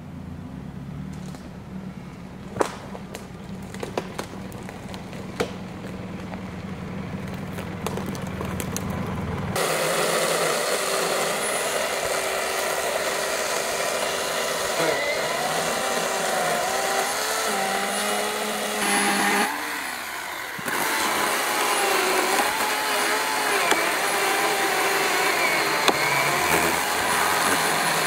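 A four-wheel-drive vehicle's engine rumbles as it drives slowly up a dirt forest track, growing louder, with a few sharp clicks. About ten seconds in it changes abruptly to a chainsaw running under load as it cuts through a fallen pine log, its pitch wavering, with a brief drop in sound about twenty seconds in.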